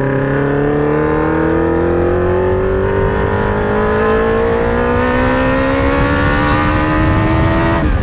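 2003 Kawasaki Z1000's inline-four engine through loud Danmoto XG-1 slip-on mufflers, under load with its pitch climbing slowly and steadily as the bike accelerates, then dropping suddenly near the end.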